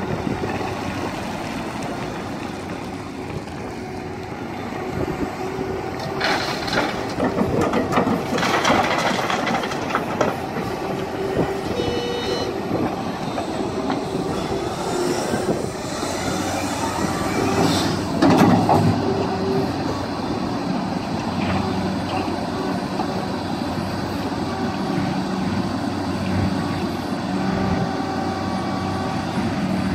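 Liebherr R 966 crawler excavator's diesel engine and hydraulics working under load as it digs and loads a dump truck. A steady engine note runs underneath several louder noisy stretches of the bucket scraping and rocks clattering, the loudest a little past halfway.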